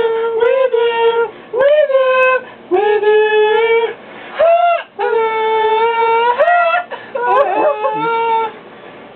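A single voice singing unaccompanied in long, held high notes, sliding up into each note, in short phrases with brief pauses between them. The last phrase wavers before the voice stops near the end.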